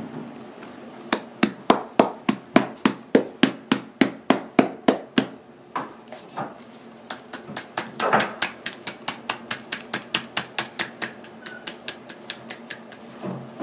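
Rapid sharp knocks on a hollow green bamboo tube holding a jelly-like filling, about three or four a second. The tube is tapped to loosen the filling. The knocks come in two runs, with a pause of about two seconds between them.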